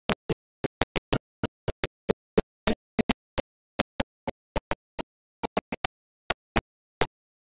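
Broken-up audio: short snatches of the bhajan's singing and music, each cut off abruptly, irregularly about four a second, with dead silence between them. This is a dropping-out, stuttering audio stream.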